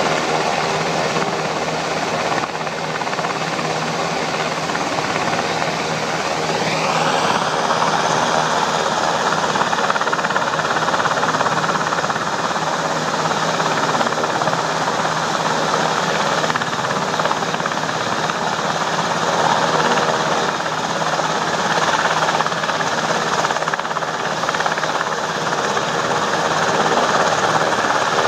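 UH-60 Black Hawk helicopter running on the ground, with steady rotor and twin-turbine noise. About seven seconds in, the turbine whine rises in pitch and then holds at the higher pitch.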